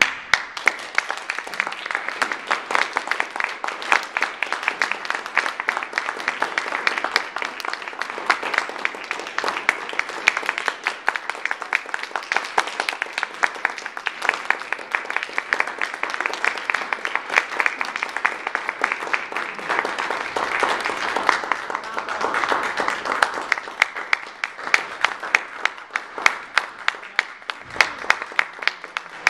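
Audience applauding, with many separate claps standing out.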